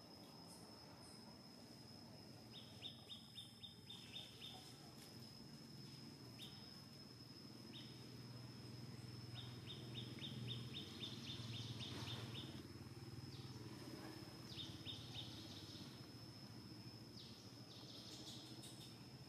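Faint background: a bird calls in quick runs of short, high, evenly repeated notes, four times, over a steady high-pitched whine and a low rumble.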